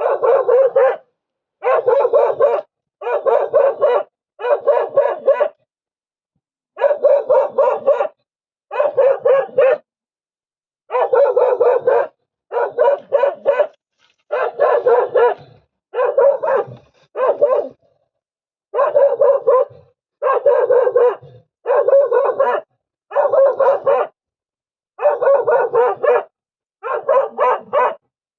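A dog barking hard and without let-up, in bouts of several quick barks about every one and a half seconds. This is alarm barking at a leopard that has come for the dog.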